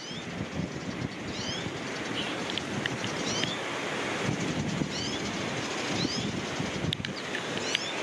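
A small bird calling over and over, short high chirping phrases about every second or two, over steady wind buffeting the microphone.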